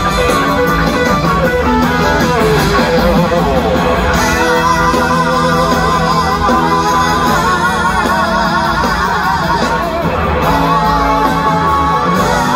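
A full band playing live, with electric guitar to the fore and wavering, sustained notes over a steady bass and drums.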